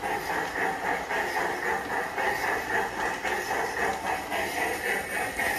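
G-scale PIKO model steam tank locomotive running around a loop of brass track with its coaches: a steady, noisy running sound that pulses evenly a few times a second.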